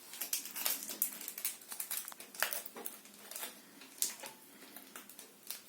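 Plastic packaging of a slime shaker being handled and worked open by hand: irregular small clicks and crinkles.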